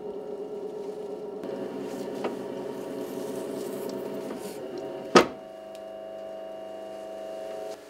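Potter's wheel motor humming steadily as the wheel turns. A single sharp click about five seconds in, after which the hum continues at a slightly different pitch.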